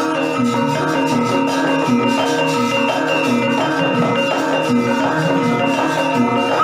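Gamelan music: metal keyed percussion instruments ringing a steady, repeating melody.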